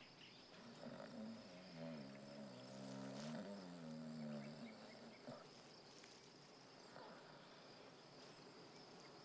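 Crickets chirping steadily and faintly in the background. A soft, low pitched sound moves in steps between a few notes from about a second and a half in until past four seconds.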